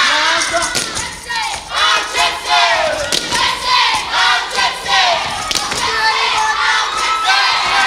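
Many young voices shouting, whooping and cheering together, over repeated thuds of gumboots stamping in a gumboot dance.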